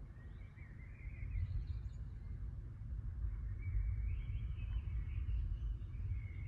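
Low rumble of distant thunder rolling, swelling about a second in and holding, with small birds chirping and warbling over it.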